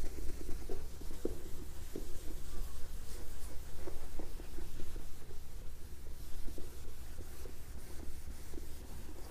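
Felt board duster rubbed back and forth over a whiteboard, wiping off marker writing: a run of irregular scrubbing strokes.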